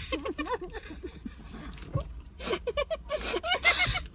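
Two women's muffled, garbled voices through mouths stuffed with marshmallows, in short broken bits that get louder in the second half.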